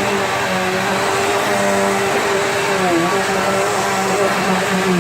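Bissell PowerGlide Platinum bagged upright vacuum cleaner running, a steady motor hum and rush of air that dips briefly in pitch twice, about three seconds in and at the end.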